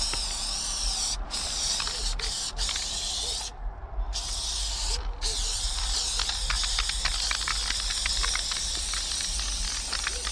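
Aerosol spray-paint can hissing as paint is sprayed in long, near-continuous bursts, with a few brief breaks where the nozzle is let go, the longest about three and a half seconds in.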